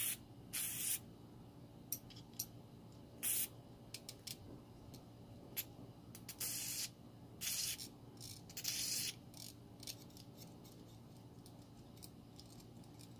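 Aerosol spray grease can hissing in about six short spurts, each under half a second, as grease is sprayed onto the gear of a fishing reel's side plate. Small clicks come between the spurts.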